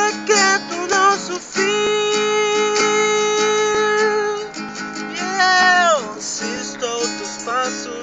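A man singing over a strummed acoustic guitar. About a second and a half in he holds one long note for nearly three seconds, then a sung note slides steeply downward, followed by shorter phrases.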